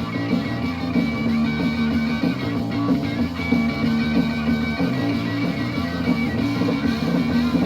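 Instrumental passage of a 1970s rock single played from a vinyl record: the band plays on between vocal lines, led by electric guitar.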